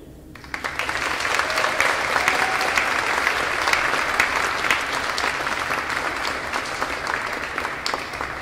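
Audience applauding, starting suddenly about half a second in and dying away near the end.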